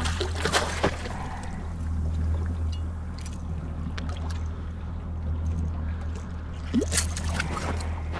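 Boat engine idling with a steady low hum, while water sloshes and gurgles against the hull, with a few light knocks.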